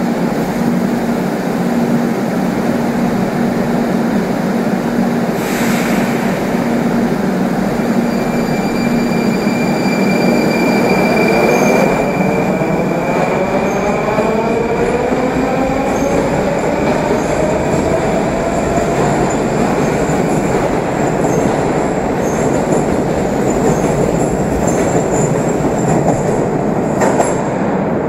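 Moscow metro train departing a station platform: a steady hum while it stands, a short hiss about five seconds in, then electric traction motors whining and rising in pitch as it accelerates away, with wheels running on the rails.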